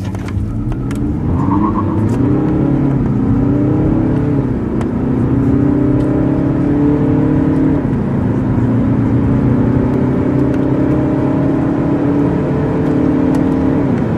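Four-cylinder 2.0-litre turbodiesel car engine under full-throttle acceleration from standstill. The pitch climbs steadily in each gear and drops sharply at each upshift, several times over.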